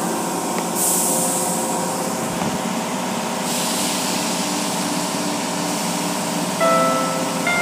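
Automatic car wash running, heard from inside the car: a steady rush of water and machinery on the car. A harder high hiss of spray sets in about a second in and eases after about three and a half seconds.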